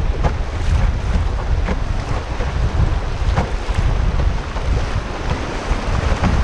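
Fast river water rushing and splashing over riffles around a canoe, with heavy wind buffeting on the microphone.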